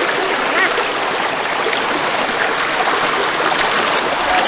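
A small river flowing steadily, with an even rush of water.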